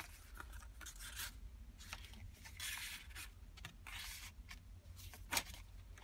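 Paper rustling and sliding as the coffee-dyed pages and card tags of a handmade journal are handled and turned, in a string of soft scrapes, with one sharper tap about five seconds in.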